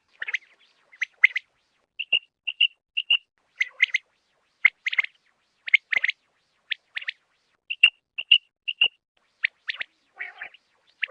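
Quail calling: short, sharp, repeated notes, often in quick pairs or threes, with a rougher, lower call near the end.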